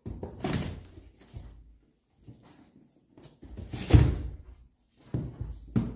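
Several hollow thumps and scrabbles of a kitten jumping, pouncing and landing on a cardboard box top, the loudest thump about four seconds in.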